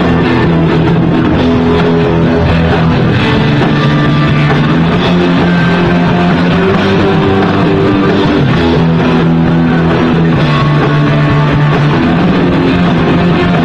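Rock band playing live, with guitar prominent, loud and steady.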